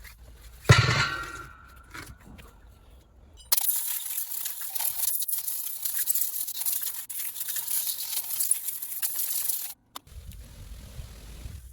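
A single sharp metal strike that rings briefly. A few seconds later comes about six seconds of harsh, dense scraping that cuts off suddenly, the sound of tools working on the car's front wheel hub.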